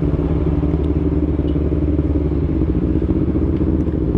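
Motorcycle engine running steadily at low revs as the bike is ridden slowly into a parking spot.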